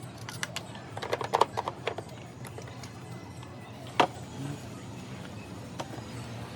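Tools and parts being handled during work on a motorcycle: a quick run of clicks and taps, then a single sharp knock about four seconds in and a lighter one near the end, over a low steady hum.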